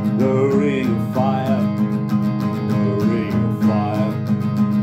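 Acoustic guitar strummed steadily in a country rhythm, with a man's voice singing a short wordless melody over it in several brief phrases.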